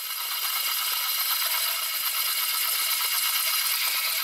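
Metal model four-cylinder engine kit running on its small electric motor, its belts, pulleys and valve train giving a steady, fast mechanical whir and clatter.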